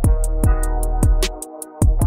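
Electronic background music with a steady beat of kick drums and hi-hat ticks; the bass drops out briefly near the end.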